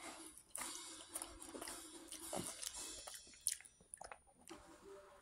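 A person chewing a mouthful of potato wedge fry, with irregular soft crunches and mouth clicks.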